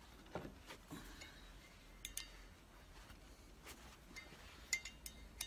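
Faint, scattered metallic clinks, about eight, of a ring spanner working an old Torx bit knocked into a drilled-out, snapped wheel stud, as the broken stud is slowly unscrewed from a lorry's cast front hub.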